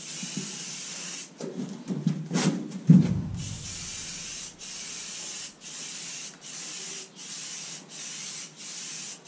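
Aerosol spray can of primer hissing in short repeated bursts of about a second each, with brief breaks between them. About two to three seconds in, a few heavy thumps, the loudest near three seconds.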